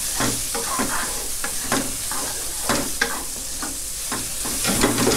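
Sliced shiitake mushrooms sizzling in oil in a granite-coated wok, stirred with a wooden spatula that scrapes and knocks against the pan at irregular moments.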